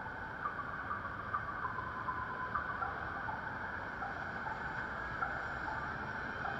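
Traffic passing over a wet road: a steady wash of tyre hiss and engine noise as a bus and cars drive through the intersection, with short faint chirps now and then.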